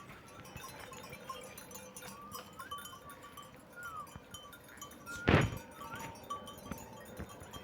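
Small bells tinkling, with short high chirps scattered throughout, and one loud sharp knock a little past five seconds in.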